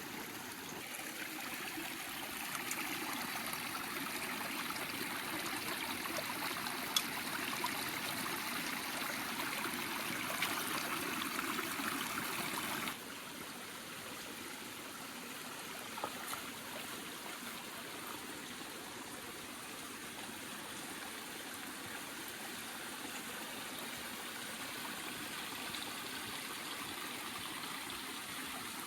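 A stream running steadily over stones, a continuous trickling rush of water. It drops suddenly to a quieter level about halfway through, with a few faint clicks.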